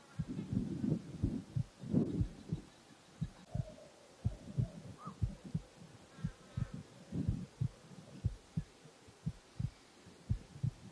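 Irregular low thumps and rumbles, about three a second, with a faint short high chirp about five seconds in.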